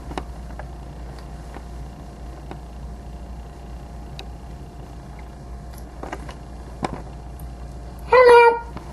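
Scattered light clicks and taps of a plastic toy figure being handled, over a steady low hum. Near the end comes one short, loud, high-pitched cry, about half a second long.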